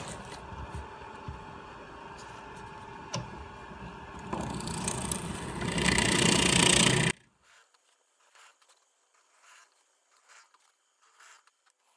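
Drill press running, its bit cutting into a pine board to bore screw holes and counterbores for wooden plugs. The cutting gets louder from about four seconds in and stops abruptly about seven seconds in, leaving only faint knocks.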